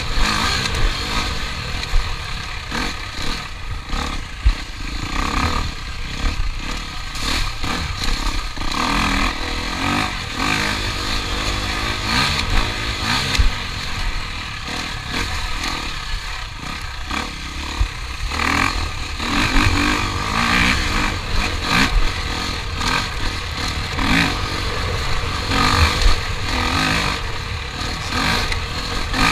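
Motor engines running and revving, with clattering.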